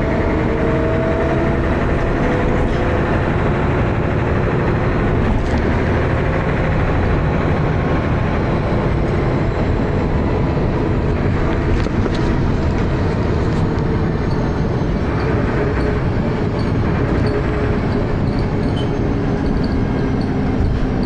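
Dennis Arrow double-decker bus on the move, its engine running hard with a heavy, rattly thrash. The engine note shifts near the start, and a few sharp knocks stand out around the middle.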